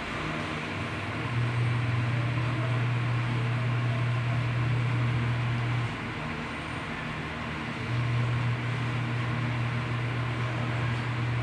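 A steady low hum over a constant hiss, with no speech; the hum drops back for about two seconds just past the middle, then returns.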